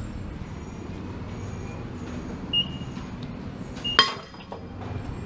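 Refuelling at a gas pump: a steady low rumble as fuel flows into the truck's tank, a short high beep about two and a half seconds in, and a sharp metallic clack about four seconds in.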